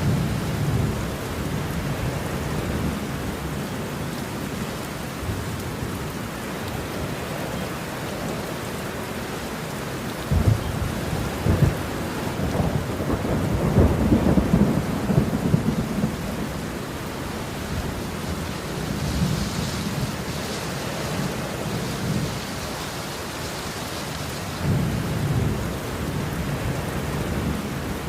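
Steady rain falling through a thunderstorm, with rolling thunder: a louder rumble with sharp cracks about a third of the way in, and lighter rumbles later.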